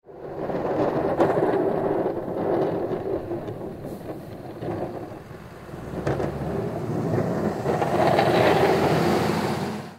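Sound effect for an animated title intro: a rumbling whoosh of noise that swells, dips in the middle, swells again and cuts off suddenly at the end.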